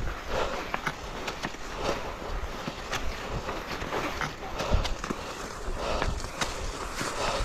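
Skis sliding and scraping over snow, with irregular swishes and short clicks about once a second.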